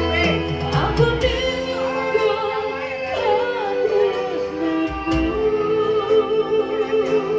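Music with a wavering singing voice over steady held instrumental tones.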